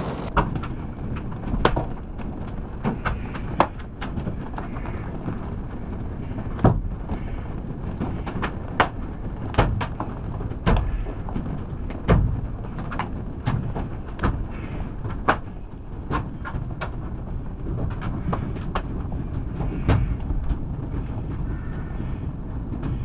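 Large hailstones striking a car's roof and windscreen, heard from inside the cabin: sharp, irregular knocks, about one or two a second and varying in strength, over a steady rumble of rain and road noise.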